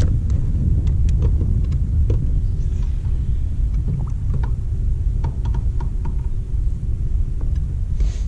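Steady low rumble of wind and water around a small boat, with scattered light clicks and knocks.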